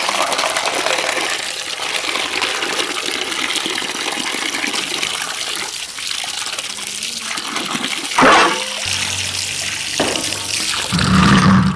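A stream of running water pouring into a steel bowl as raw chicken pieces are rinsed and rubbed by hand, a steady splashing rush. Near the end the water splashes more loudly onto a steel plate being rinsed.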